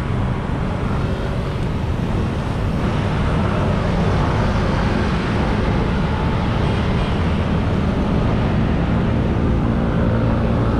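Steady roadside traffic of cars and motorbikes passing close by, a continuous rumble of engines and tyres with no gaps. A single passing engine's hum stands out near the end.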